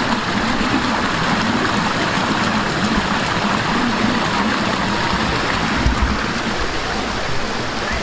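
Small woodland stream running fast over rocks and pouring down a little waterfall, a steady rushing splash. A brief low thud about six seconds in.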